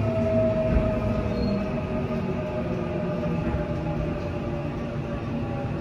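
Seoul Line 4 electric subway train heard from inside the car: running rumble with a steady motor whine that falls slowly in pitch as the train slows, pulling into the station.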